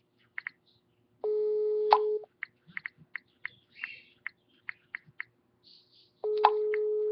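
Telephone ringback tone heard through a phone's loudspeaker: two one-second beeps at one steady mid pitch, about five seconds apart, the call ringing unanswered at the other end. Short faint ticks are scattered between the beeps.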